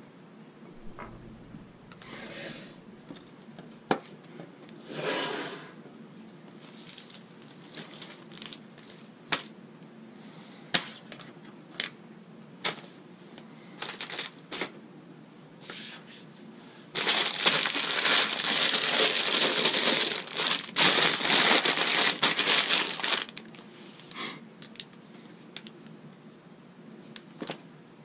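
Thin plastic LEGO parts bags crinkling and rustling loudly for about six seconds past the middle, among scattered short clicks and taps of pieces and bags being handled on a wooden table.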